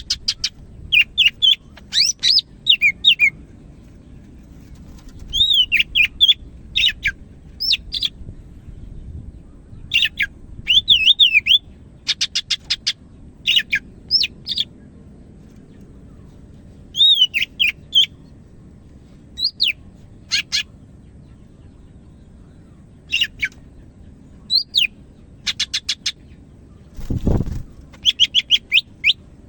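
A cucak hijau (green leafbird) singing: loud phrases of sharply slurred whistles and fast trills, broken by short pauses. There is a low thud near the end.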